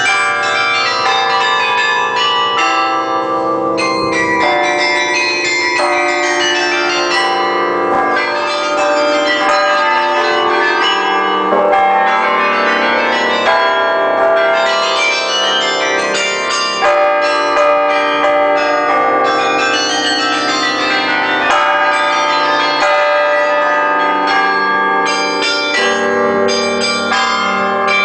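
The carillon of the Bruges Belfry playing a tune: many tuned bells struck in quick succession, their notes overlapping and ringing on.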